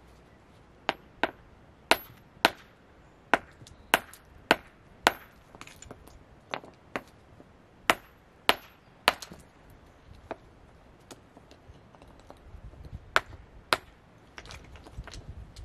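Hand hammer striking stone in sharp, ringing blows, in irregular runs of about two a second, then a pause of a few seconds before two last strikes.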